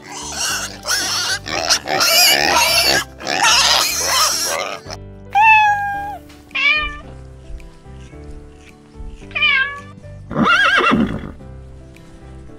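Piglets squealing in harsh, loud bursts for the first few seconds. Then a cat meows several times in short calls that fall in pitch, and a horse whinnies with a wavering call near the end, all over background music.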